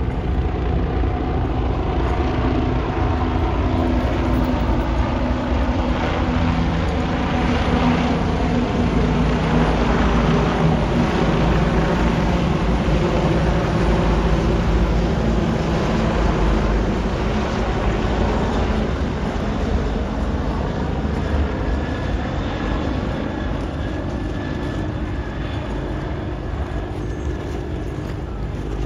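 Steady low rumble of motor engines, with a few held low engine tones that drift slightly in pitch.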